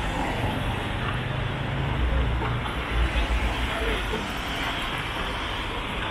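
Road traffic on a city street: a steady hum of traffic with a motor vehicle's low engine rumble swelling as it passes, loudest about two to three seconds in.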